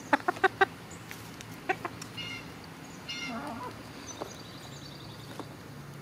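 Hens clucking close by: a quick run of four sharp clucks right at the start, two more a little under two seconds in, then a couple of higher, longer calls in the middle.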